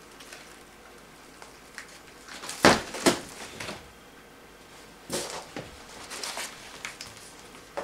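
Cardboard and styrofoam packing being handled: two loud scraping knocks close together about two and a half seconds in, then a few quieter rustles and scrapes.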